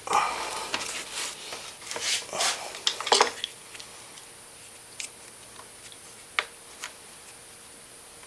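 Stiff plastic ATV body panel rubbing, scraping and clicking as it is wiggled and pushed into place, followed by a few light ticks of a screwdriver against the plastic.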